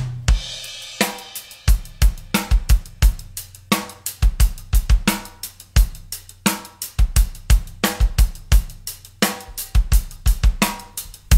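Music: a drum break of kick, snare, hi-hat and cymbals playing a busy, fast pattern with no other instruments.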